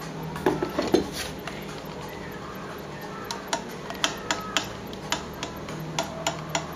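Mechanical clicking: a quick cluster of sharp knocks about half a second in, then irregular sharp clicks about three a second, some ringing briefly.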